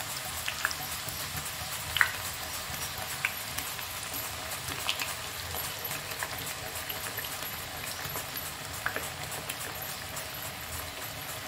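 Raw Nendran banana slices deep-frying in hot oil, freshly added: a steady sizzle with scattered sharp pops and crackles, the loudest about two seconds in.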